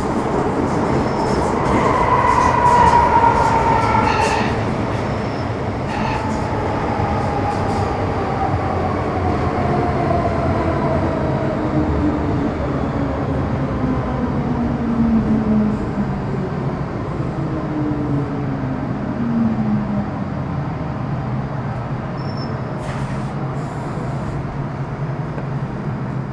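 MTR Metro Cammell M-Train's GEC GTO chopper traction equipment whining as the train brakes: several tones slide steadily down in pitch over the rumble of the wheels on the rails as it slows toward a stop.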